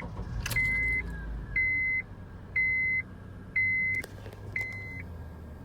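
Car's warning chime beeping at one high pitch about once a second, six times, as the car is started; the engine's low rumble and then a steady low idle run underneath, with a single click near the end of the beeping.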